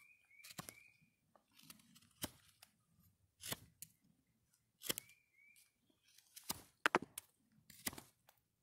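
A knife whittling a sharp point on a wooden stick: about seven short, sharp cutting strokes at uneven intervals.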